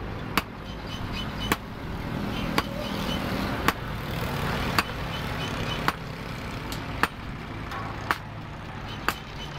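Sledgehammer blows on a steel axe head forged from truck leaf spring, held in tongs on an anvil: sharp metal-on-metal strikes, nine in all, about one a second.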